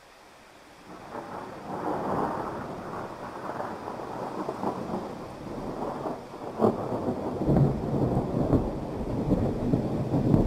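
Rolling thunder starting about a second in over steady rain, rumbling and crackling and growing louder, with a sharper crack about two-thirds of the way through.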